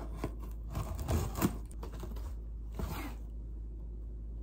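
Knife slicing through the packing tape on a cardboard box: a few short scraping rasps of blade on tape and cardboard, stopping about three seconds in.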